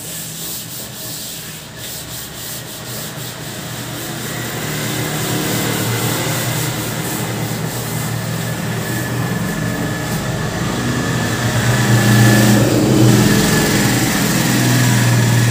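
A cloth duster rubbing across a chalkboard, wiping off chalk writing. Under it runs a steady low hum that gets louder in the second half.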